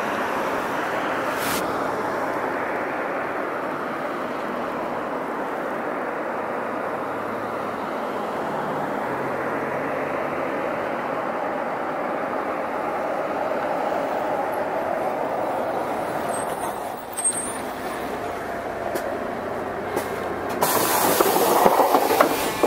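Hino Blue Ribbon II city bus under way, heard from on board: a steady rush of engine and road noise, with a louder surge of noise near the end.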